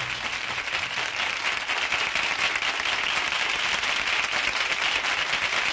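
Audience applauding, dense and steady, as the music's last chord stops right at the start.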